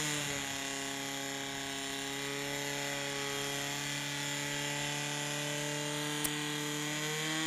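Portable fire pump engine running steadily at high revs with an even, unchanging pitch, driving water through the attack hoses.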